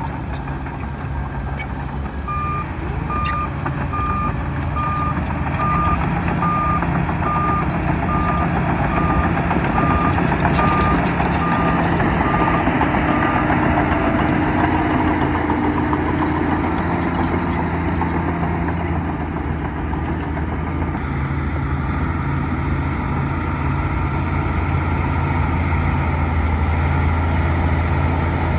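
Bulldozer's diesel engine running steadily, with a reversing alarm beeping about twice a second that starts a couple of seconds in and stops about halfway, as the machine backs up.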